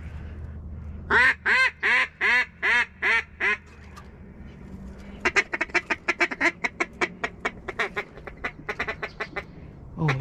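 Mallard-style duck call blown by a hunter: seven loud descending quacks, about three a second, then after a short pause a fast, uneven run of short clucks lasting about four seconds, the hail call followed by a feed chuckle.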